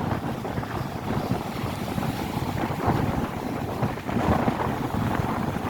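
Storm wind buffeting the microphone, over the wash of rough sea surf.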